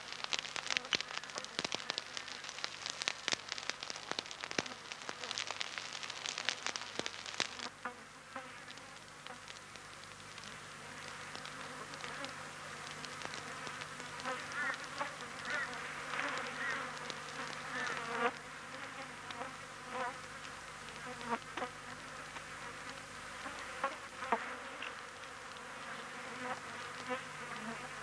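A wood fire crackling and popping densely as meat roasts over it. About eight seconds in it gives way to quieter forest ambience of insects buzzing, with scattered chirps and the odd click.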